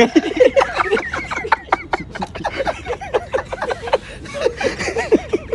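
A group of people laughing and chattering at once in short, quick bursts.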